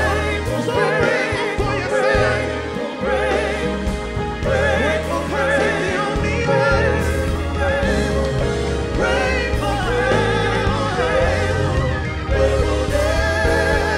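Live gospel singing with vibrato over a band with a sustained bass line.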